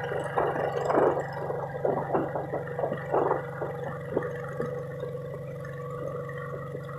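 Water splashing and sloshing irregularly against a boat, mostly in the first half, over a steady low motor hum.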